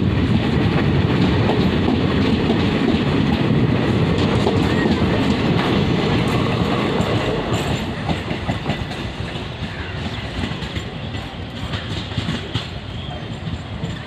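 Departing passenger train's coaches rolling past on the track, a steady rumble that fades from about halfway through as the last coach moves away.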